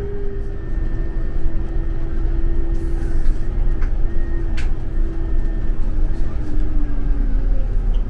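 Scania coach on the move, heard from inside the cabin: a steady low engine and road rumble with a drivetrain whine that slowly drops in pitch. A couple of light clicks or rattles come about halfway through.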